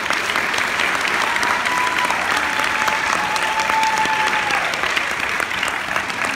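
Audience applauding steadily, many hands clapping at once. A thin steady tone sounds for about three seconds in the middle.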